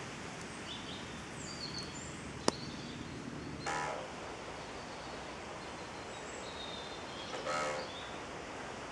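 Woodland birds calling over a steady outdoor hiss: faint short high chirps, and two louder harsh calls about four seconds apart. A single sharp click sounds between them.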